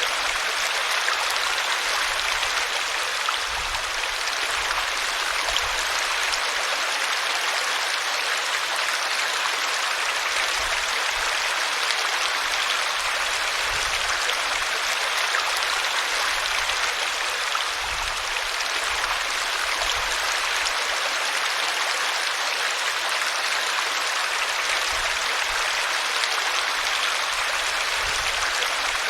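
River water flowing and splashing over rocks in a steady rush.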